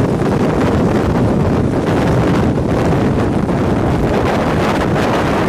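Strong wind buffeting the microphone: a loud, steady rushing noise from the storm winds close to a tornado, heard from a moving vehicle.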